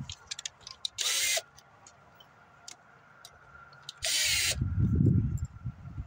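Cordless drill running in two short bursts, about three seconds apart, driving the door-panel screws back in. Each burst has a whine that bends in pitch as the motor starts and stops. Right after the second burst comes a low rumble, with small clicks in between.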